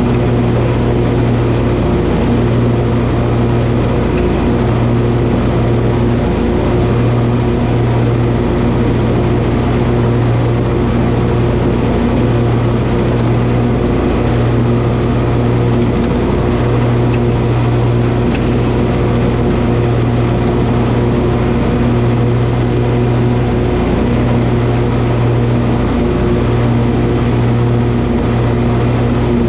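Toro zero-turn riding mower running with a steady, unchanging engine drone.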